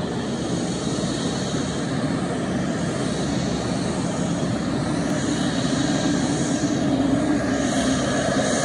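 Pilatus PC-12's single Pratt & Whitney PT6A turboprop running at taxi power. A steady propeller drone with a high whine above it, growing a little louder near the end.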